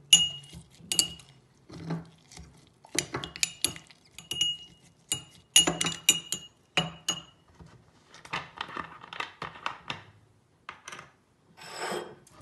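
A metal spoon knocking and clinking against a glass tumbler as lime pieces and mint leaves are muddled and stirred in it: a quick, irregular run of sharp ringing chinks, giving way to softer crushing and scraping in the second half.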